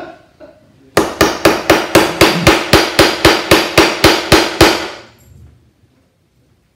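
Small mallet striking a metal fret-pressing caul to drive fret wire into the slots of an instrument's fretboard. About sixteen quick, evenly spaced strikes at roughly four a second, each with a short metallic ring; they start about a second in and stop after about four seconds.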